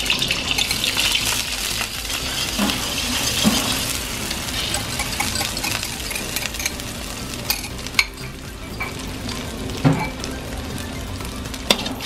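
Beaten eggs sizzling as they fry in hot oil in a metal wok, the sizzle strongest at first and then settling. A few sharp clinks and scrapes come from a perforated metal skimmer working the egg against the wok.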